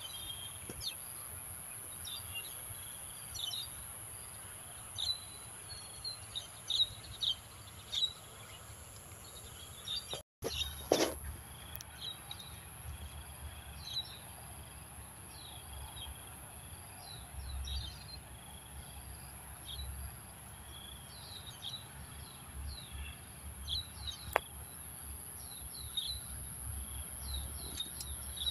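Outdoor ambience picked up by a phone's built-in microphone: many short bird chirps over a steady high insect drone. About ten seconds in the sound drops out briefly, and after that wind rumbles on the microphone.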